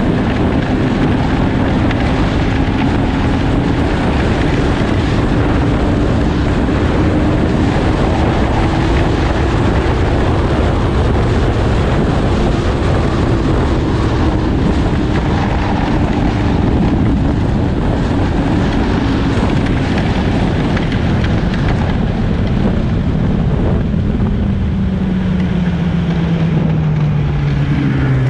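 Snowmobile engine running steadily under a loud rushing noise, its pitch then falling over the last six seconds or so as the engine slows.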